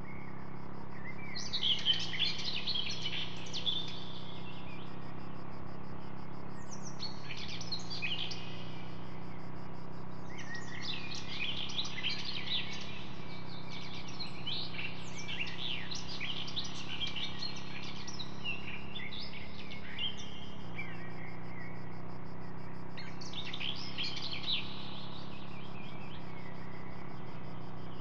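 Small birds chirping and twittering in repeated bursts of quick high calls, over a steady low hum.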